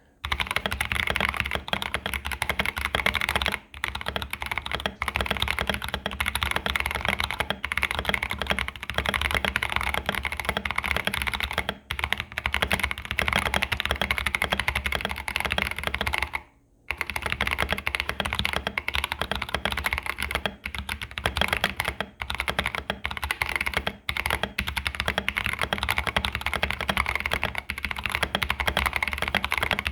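Fast, continuous typing on an Austin v1.1 custom mechanical keyboard with Boba U4T tactile switches, doubleshot PBT keycaps, a tape mod and case foam: dense keystrokes with a few short breaks, the longest about sixteen seconds in.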